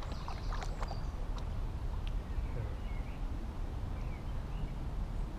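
Riverside outdoor ambience: a steady low rumble with a few faint bird chirps.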